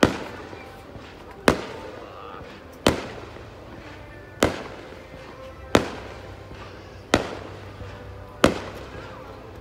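Aerial fireworks bursting in a steady series: seven sharp bangs about one and a half seconds apart, each trailing off as it dies away.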